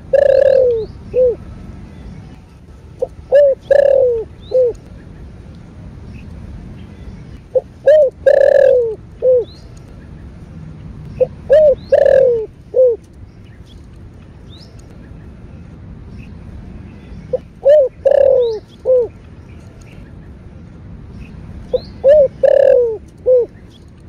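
Spotted dove cooing its calling song. It gives six phrases a few seconds apart, each a couple of short coos, then a long, loudest coo, then a short final note.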